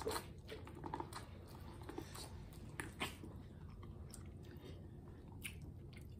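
Biting into boiled corn on the cob and chewing it close to the microphone: a few sharp kernel crunches in the first three seconds, then quieter chewing.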